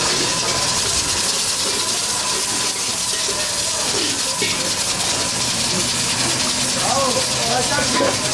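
Steady hiss of lit gas stove burners and steaming cooking pots in a busy kitchen, with faint voices in the background.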